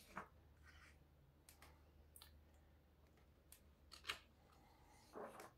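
Near silence with the faint paper sounds of pages being handled in a hardcover comic book: a page turning at the start, then a handful of soft ticks and rustles from fingers on the paper.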